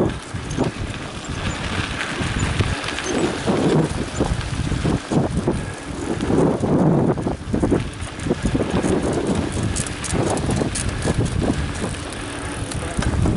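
Mountain bike ridden over a bumpy dirt-and-grass trail: a rough rolling rumble of tyres and frame with knocks and rattles, busiest about ten seconds in, and wind on the microphone.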